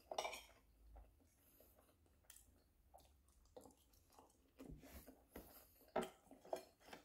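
Faint chewing and mouth sounds of a person eating, with a few brief, slightly louder clicks about a second before the end.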